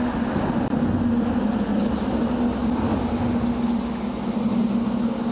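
A motor or engine running steadily, a constant low hum over a rough rumble that holds one pitch throughout.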